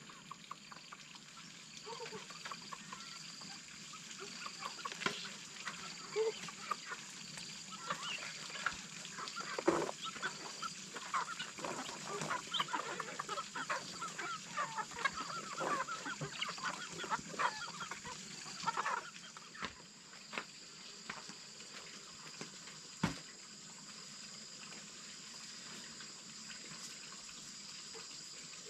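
Domestic fowl calling: a flurry of short honks and clucks, busiest through the middle. A single sharp knock comes near the end.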